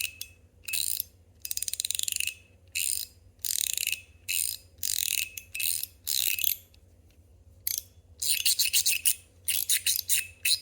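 Stainless steel fidget slider being slid out and back by hand, each slide and return giving a short run of rapid metallic clicks. The bursts repeat about a dozen times, with a brief pause about seven seconds in.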